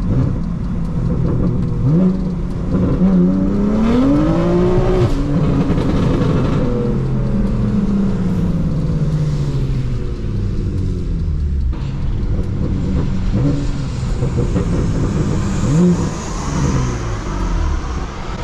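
BMW F80 M3's S55 twin-turbo inline-six, on a Valvetronic equal-length exhaust with catless downpipes, running loud. Its pitch climbs from about two seconds in to a peak around five seconds, falls away slowly over the next few seconds, and climbs again briefly later on.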